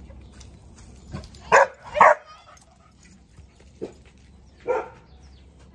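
A dog barking: two loud barks in quick succession about a second and a half in, then two fainter barks near the end.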